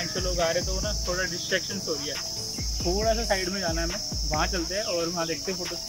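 Steady high-pitched buzz of an insect chorus, unbroken throughout, with a voice over it.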